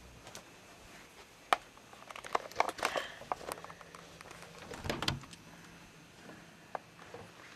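An interior door being opened: a sharp latch click about a second and a half in, then a cluster of knob and latch rattles, and a soft thump about five seconds in, with a few light clicks and steps after.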